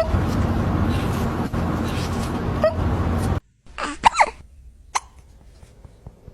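Cat hiccuping: a few short, sudden hics. The first ones sit over a loud steady background noise that cuts off suddenly about three and a half seconds in; the rest come against a quiet background.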